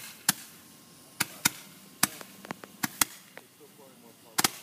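Small fireworks going off in sharp, separate bangs at irregular intervals, about eight in all, with a quick double bang near the end.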